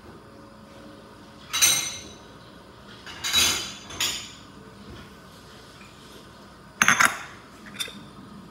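Kitchen utensils and dishes clattering while someone gets things out of a lower cupboard. There are several separate clinks and knocks, with the loudest about a second and a half in and a quick cluster of them near seven seconds.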